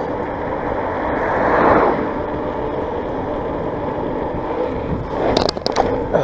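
Wind rushing over the microphone and tyre noise from a mountain bike rolling along, swelling briefly about a second and a half in. A few sharp clicks and rattles come near the end.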